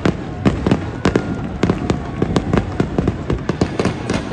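Aerial firework shells bursting overhead: a rapid, irregular barrage of sharp bangs and pops, several a second.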